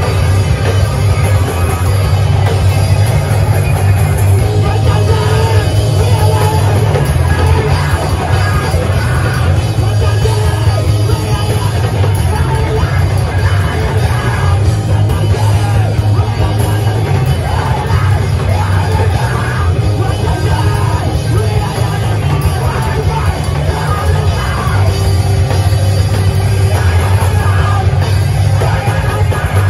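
Live rock band playing loud, with yelled vocals over heavy bass and drums.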